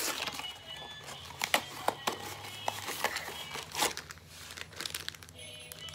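A small cardboard toy box torn open, then a plastic bag with a toy figure inside crinkled and handled: irregular crackles and rustles.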